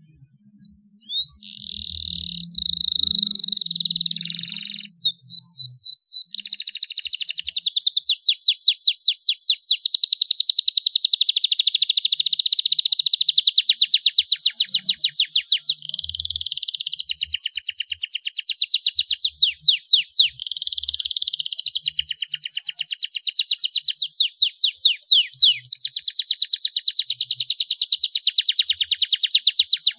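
Domestic canary singing a long, almost unbroken song of fast trills, runs of quickly repeated sweeping high notes, with a few short pauses.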